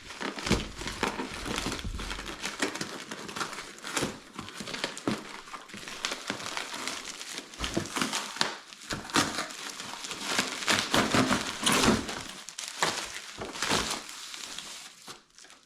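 Packaging being unwrapped by hand: irregular crinkling and crumpling of wrapping material, easing off near the end.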